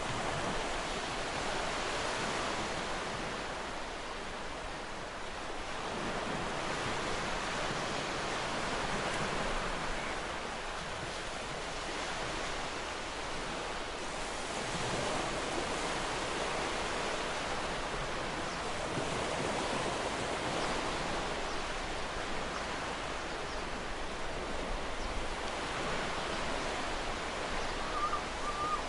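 Ocean surf on a beach: waves breaking and washing in, the rush of water swelling and easing every few seconds.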